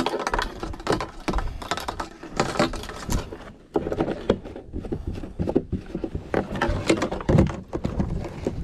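Rapid, irregular clattering and knocking.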